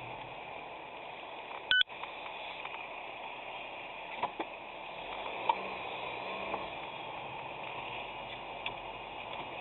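Steady road and cabin noise picked up by a dash camera's low-quality microphone. A short beep-like tone sounds about two seconds in, and a few faint clicks follow a few seconds later.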